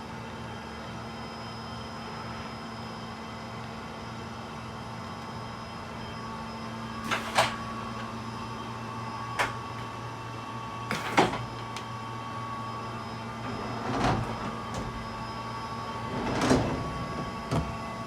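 Vertical machining centre running with a steady multi-tone hum, with about six sharp metallic clanks and knocks in the second half.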